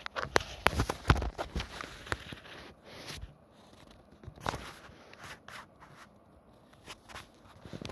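Close, scratchy rustling and clicking as the camera's microphone brushes against a cat's fur. It is busiest in the first few seconds, then mostly quiet, with a short rustle about halfway through.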